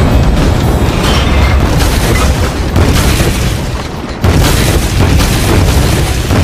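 Film soundtrack of deep, loud booming rumbles under music, with sudden heavy hits at the start and again about four seconds in.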